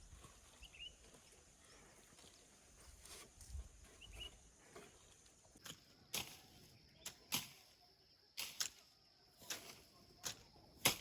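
Faint outdoor background with a couple of short chirps. From about halfway in, a run of irregular sharp clicks or taps.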